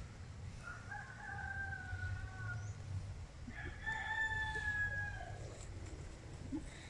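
Rooster crowing: two long crows, the second one louder, starting a little past the middle.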